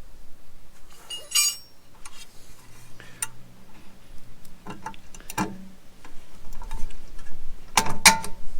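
Scattered metallic clinks and knocks of hand tools against steel parts while the bike rack is bolted together, one ringing clink a little over a second in and a quick run of louder knocks near the end.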